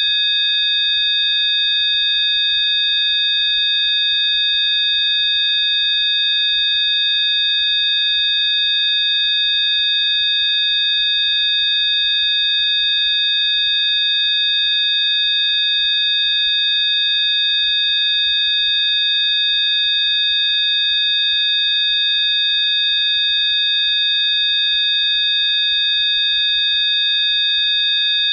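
Electronic Rife-frequency tone track: several steady, high-pitched sine tones sounding together and holding without change.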